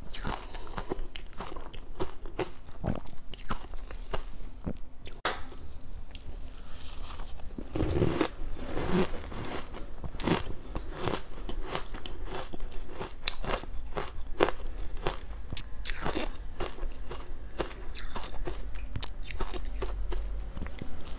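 Close-miked crunching and chewing of soft, powdery ice coated in matcha powder: a rapid, irregular run of crisp crunches, with a heavier, lower crunch about eight seconds in.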